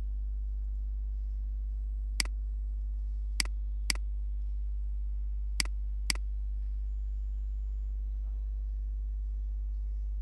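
Five sharp computer mouse clicks, a single one and then two quick pairs about half a second apart, over a steady low electrical hum.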